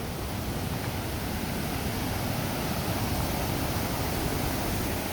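Steady rush of a waterfall on the McKenzie River, with a heavy low rumble.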